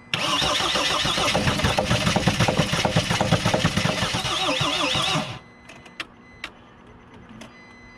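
Mercedes Sprinter diesel engine cranking on the starter for about five seconds without catching, then stopping. It is a no-start while air is still being bled out of the fuel system after a fuel pump replacement.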